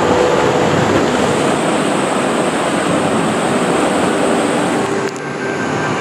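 Rushing, churning water of a wild-river water-park channel heard up close from water level, a steady loud rush; the sound dips and changes about five seconds in.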